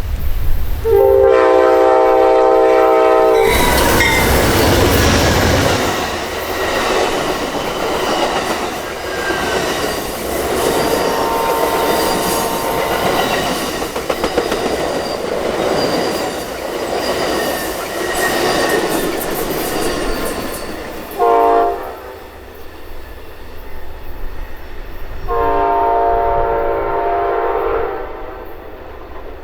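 Amtrak California Zephyr passenger train. A multi-note locomotive horn sounds for about two and a half seconds, then the train passes close by with its wheels rolling and clacking over the rail joints and a faint squeal, for about seventeen seconds. Once it has passed there is a short horn toot, and a few seconds later a longer horn blast of about three seconds: the crew's acknowledgement.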